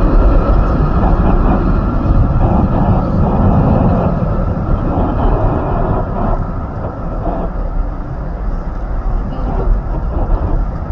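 Twin-engine wide-body airliner's jet engines at take-off power, a steady low rumble as it rolls away down the runway, easing off somewhat in the second half.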